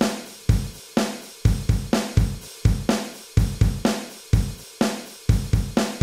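Drum-machine beat from the built-in rhythm function of a Zoom G1Four multi-effects pedal: kick, snare and hi-hat in a steady, even pattern at about two beats a second.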